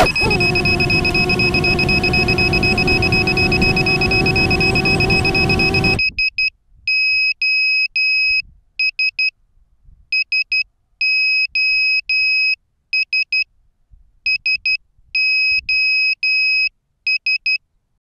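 FPV drone hitting the grass, its motors still running with a steady whir and hum for about six seconds before cutting off suddenly. Then its electronic beeper sounds a high beeping in irregular groups, like a lost-model alarm.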